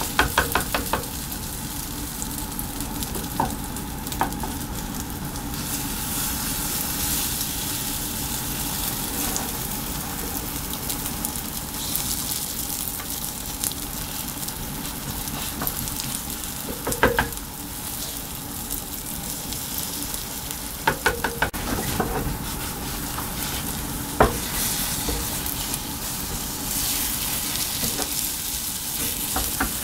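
Food sizzling steadily in a small rectangular tamagoyaki frying pan over a gas flame while it is stirred with chopsticks. The chopsticks clink sharply against the pan in short clusters, at the start and several more times.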